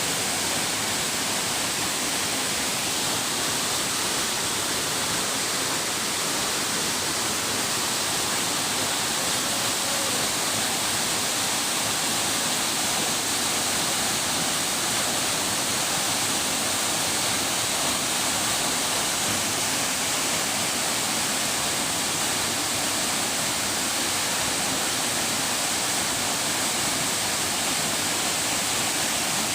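Waterfall: a constant, even rush of falling and splashing water.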